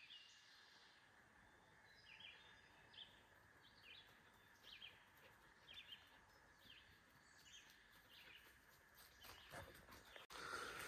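Faint birdsong in the woods: a bird repeating a short high chirp about once a second, over a faint steady background. A brief louder rustling noise comes near the end.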